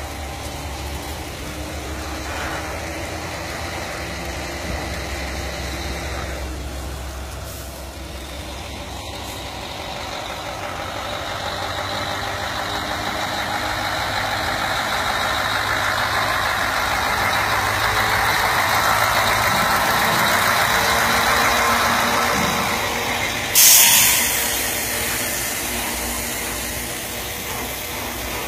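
Heavy diesel truck engine running, growing louder over several seconds. About 23 seconds in comes a sudden loud hiss of air that fades over two or three seconds, the air brakes being set.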